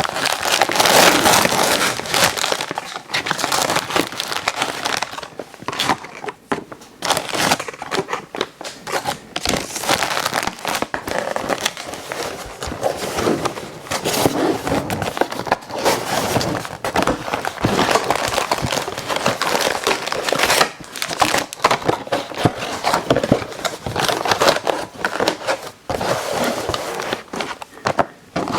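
Plastic snack packaging crinkling and crackling as it is handled, with many quick crackles.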